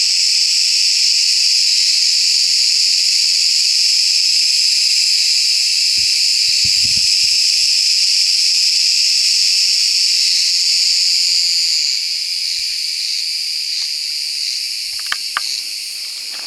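Cicada singing: a loud, continuous high-pitched buzzing drone that holds steady and eases off slightly towards the end. A few faint knocks and clicks sound under it.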